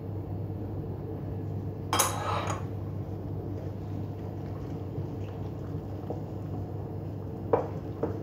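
Wooden spoon stirring flour and water into a dough in a glass mixing bowl, scraping and knocking against the glass. There is a louder clatter about two seconds in and two smaller knocks near the end.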